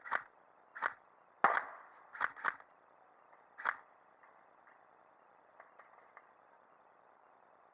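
Airsoft gun firing single shots: about half a dozen sharp cracks at uneven intervals, the loudest about a second and a half in, then a few fainter cracks near the end.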